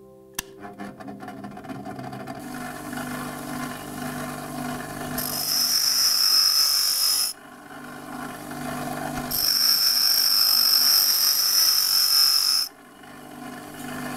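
Small electric emery-wheel grinder running while a steel twist drill bit is sharpened by hand against the wheel. There are two grinding passes, about two and three seconds long, each a loud, high-pitched grinding noise that stops sharply when the bit is lifted off, with the motor's hum between them.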